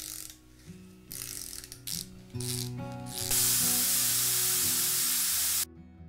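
Ratchet wrench clicking in short bursts as a bike pedal is tightened onto the crank arm. A loud steady hiss follows for about two seconds and cuts off suddenly. Soft background music plays underneath.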